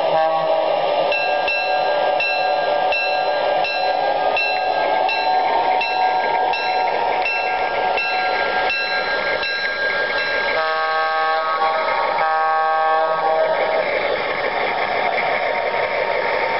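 Model diesel locomotive's onboard sound system, the bell ringing about twice a second over running engine and track noise, then two long horn blasts from about ten and a half seconds in.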